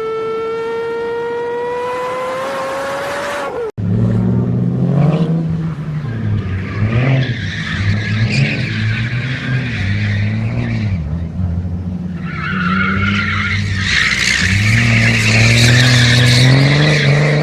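A steady pitched drone that rises slightly and cuts off abruptly. Then a car engine revs up and down while its tyres squeal in two long skids.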